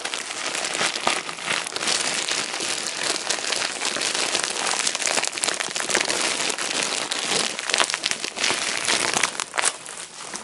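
Plastic mailer bag and bubble-wrap packaging crinkling and rustling as it is handled and opened, a dense run of sharp crackles.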